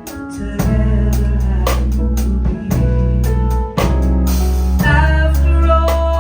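Live band playing a pop-soul song: a steady drum-kit beat over strong bass and sustained keyboard chords.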